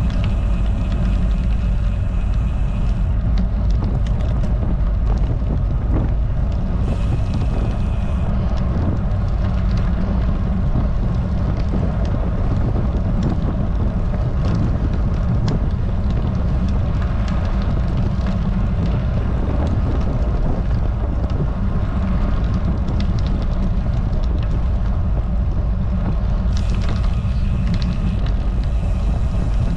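Wind rushing over a bike-mounted action camera's microphone at about 17 mph, a steady loud low rumble, mixed with the road bike's tyres humming on the rough asphalt.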